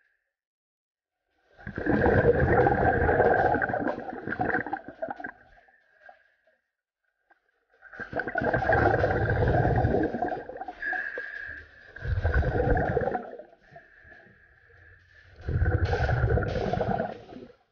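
A scuba diver breathing through a regulator underwater: four bursts of exhaled bubbles rushing out, each lasting one to four seconds. A faint thin whistle sounds in the pauses between breaths.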